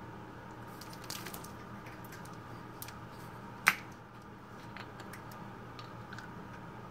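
Plastic water bottle being handled and its screw cap twisted open: crinkling plastic about a second in, one sharp crack from the cap a little over halfway through, then a few light clicks as the cap turns.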